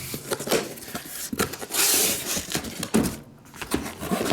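Handling noise from trading-card boxes and packaging: a string of light knocks and taps, with a brief louder scraping rustle about two seconds in and a sharper knock about three seconds in.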